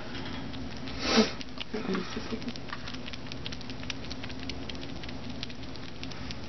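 Sugar glider chewing a mealworm: a run of small, quick crackling clicks, with a brief louder rustle about a second in.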